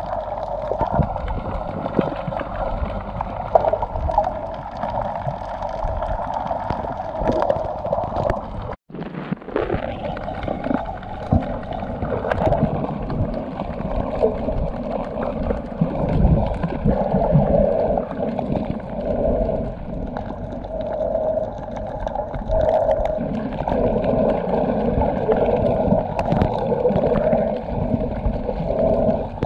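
Muffled underwater sound picked up by a snorkeler's camera beneath the surface: a steady wash of water noise with gurgling, cut off briefly about nine seconds in.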